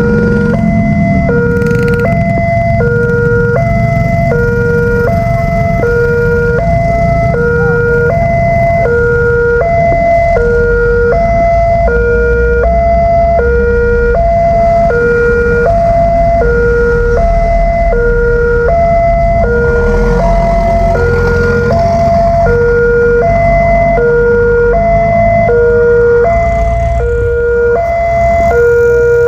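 Electronic two-tone warning alarm of an Indonesian railway level crossing, alternating steadily between a higher and a lower tone about every two-thirds of a second. Under it runs the low rumble of road traffic.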